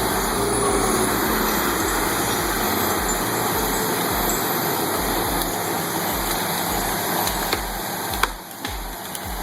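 Diesel engine of a Cat 525 grapple skidder running steadily under load, with a pulsing low rumble. There is a single sharp click about eight seconds in, after which the sound briefly drops lower.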